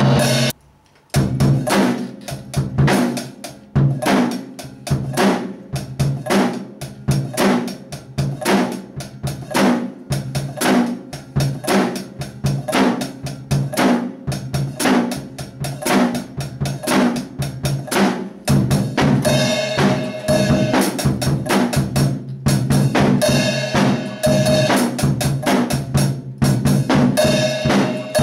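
Acoustic drum kit played in a continuous beat: bass drum driven by a double kick pedal, with snare, rimshot and cymbal hits. The playing breaks off for a moment about half a second in, then carries on without pause.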